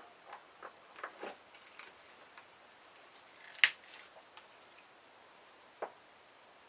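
Hand snippers clicking and snapping as they cut at parts of a circuit board: a scatter of sharp clicks, with one loud snap about three and a half seconds in.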